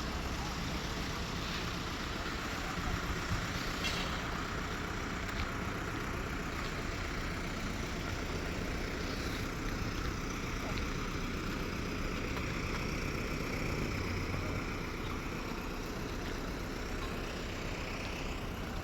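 Steady rumble of road traffic, with no single vehicle standing out.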